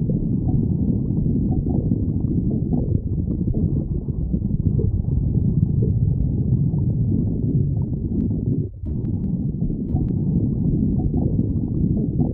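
A hungry stomach growling: a continuous low rumble with a brief break about nine seconds in.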